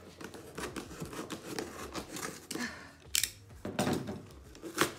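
Packing tape being picked at and peeled off a cardboard shipping box: scattered scratchy crackles, with sharp snaps about three seconds in and near the end.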